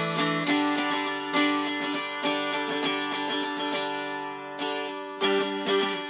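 Handmade mountain dulcimer being strummed, about two strums a second. A tune moves on the melody string over steady droning strings.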